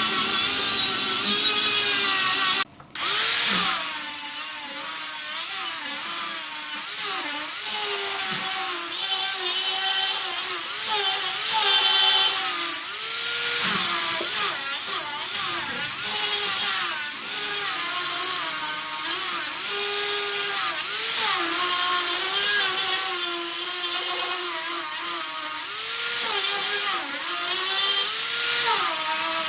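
Large wood lathe spinning a wood piece while a turning tool cuts into it: a continuous whine whose pitch wavers up and down as the cut changes, over a hiss of shaving wood. It drops out briefly about three seconds in.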